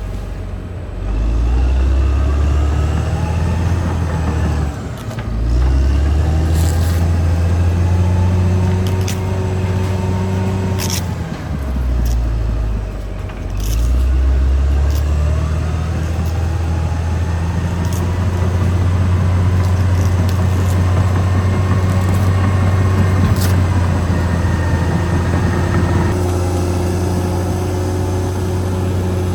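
Caterpillar D6R XL bulldozer's diesel engine working under load, its pitch dipping and picking up again a few times, with occasional sharp knocks.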